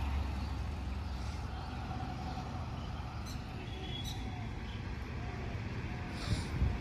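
Roadside traffic: a low vehicle rumble fading away at the start, then a steady background of road noise with faint bird chirps. A short hiss comes near the end.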